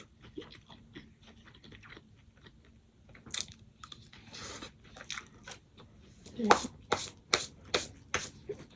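A person chewing and biting crunchy breakfast food close to the microphone. The crunches come as a run of sharp clicks, louder and more frequent in the second half.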